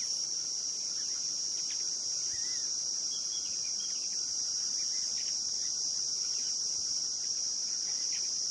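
Steady, high-pitched chorus of insects trilling without a break, with a few faint bird chirps beneath it.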